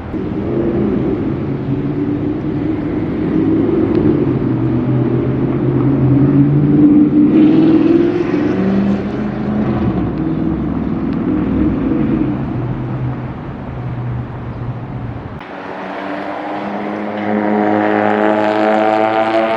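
Sports car engines: one car's engine revving and running with shifting pitch, then an abrupt cut about 15 seconds in to another car whose engine climbs steadily in pitch as it accelerates hard.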